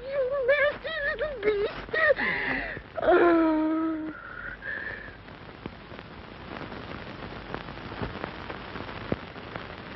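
A high, wavering voice whimpering and wailing in short swells for the first few seconds, ending on one held moan. After that only the hiss and crackle of the old film soundtrack remain, with faint scattered clicks.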